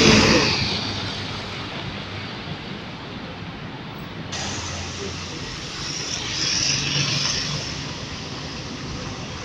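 City buses and traffic passing on a busy avenue: a bus goes by right beside the microphone at the start, loudest there and then fading, followed by the engine noise of more approaching buses, with a hissing swell about six to seven seconds in.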